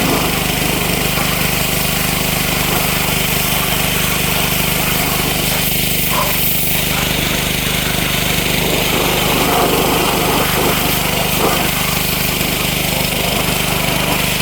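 Pressure washer running steadily, its motor humming under the constant hiss of the high-pressure water jet spraying down an engine and chassis.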